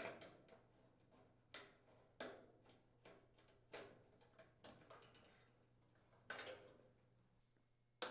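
Faint, irregular clicks of a nut driver turning out the hex-head mounting screws of a range's sheet-metal control panel, about one every second or so.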